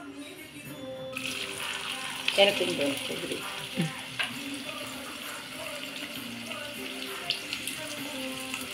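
Chopped onions sizzling in hot oil in a kadai, the hiss starting suddenly about a second in, with a few sharp clinks of a spoon against the pan as they are stirred. Faint background music plays underneath.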